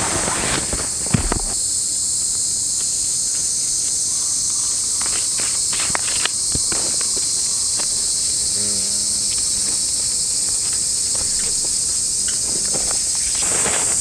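A dense, steady, high-pitched insect chorus, with a few light knocks and rustles from handling camping gear about a second in and again around six seconds.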